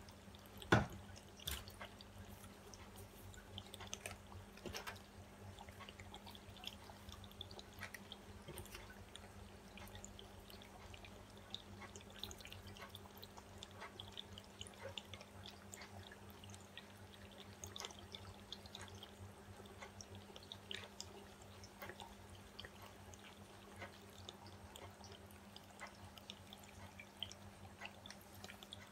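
Wooden craft stick stirring acrylic paint and pouring medium in small plastic cups: faint wet scraping with small ticking clicks against the cup, and one sharp knock about a second in. A steady low hum sits underneath.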